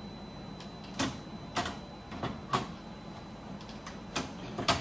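Sharp plastic snaps and clicks as long-handled cutters bite through the plastic active grille shutter behind a BMW G30's kidney grille: about five distinct cracks, the loudest about a second in and just before the end.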